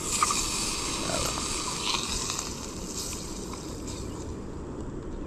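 Butter sizzling in a hot pan: a hiss that starts suddenly and slowly eases off.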